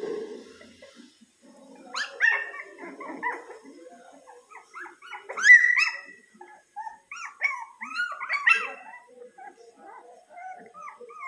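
A litter of Lhasa Apso puppies yelping and whining in short, high-pitched calls every second or so. The loudest call comes about five and a half seconds in.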